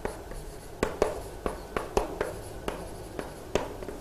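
Handwriting strokes: a series of short, sharp taps and scrapes, irregular, about two or three a second.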